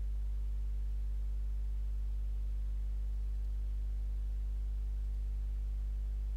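Steady low electrical mains hum, a 50 Hz buzz with its evenly spaced overtones, unchanging throughout. It is the sign of mains interference, such as a ground loop, in the recording chain.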